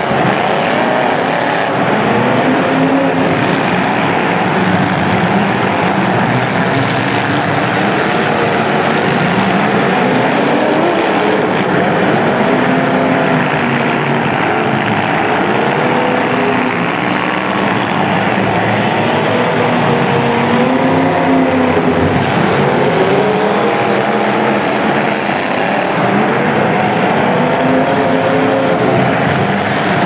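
Engines of several demolition derby cars running and revving up and down at once, loud and continuous.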